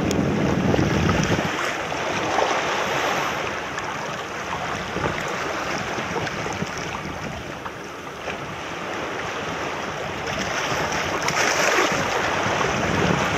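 Small waves washing and splashing over rocks at the water's edge, with wind buffeting the microphone. The wind rumble is heaviest in the first second or so, and the wash swells again near the end.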